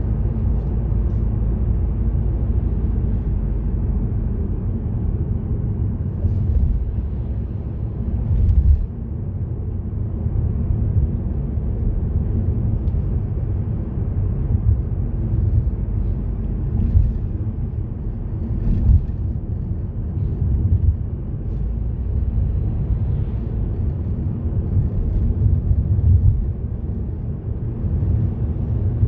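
A car driving on a road: a steady low rumble of tyres and engine, with a few brief knocks from bumps along the way.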